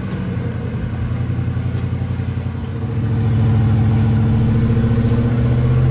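Rock buggy's 6-litre Chevy V8 running under load as the buggy crawls up a rocky slope: a low, pulsing engine note that grows louder about three seconds in.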